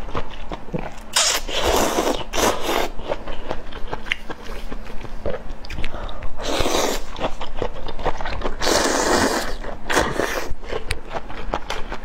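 Close-miked eating: several long slurps of noodles, with wet chewing, biting and lip-smacking between them.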